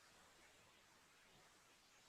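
Near silence: faint steady hiss of the recording.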